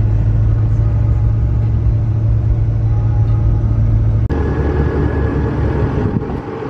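Steady low drone of a car's engine and road noise heard from inside the moving vehicle. About four seconds in it cuts off abruptly and a different steady vehicle noise, with a higher hum, takes over.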